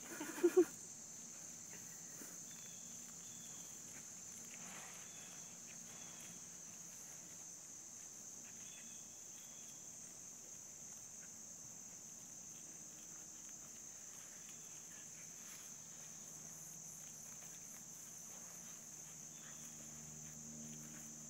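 Steady high insect chorus running throughout. About half a second in, two quick loud sounds from the dogs at play, a short vocalisation.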